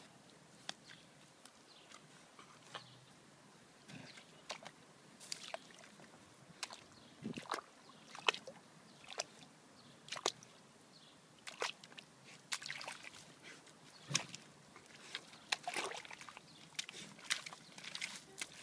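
A dog digging with its front paws in wet, muddy soil: irregular scrapes and wet splats of earth, coming more often after the first few seconds.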